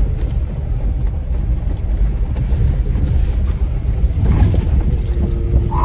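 Jeep Wrangler JK crawling slowly along a dirt trail: a steady low rumble of engine and drivetrain.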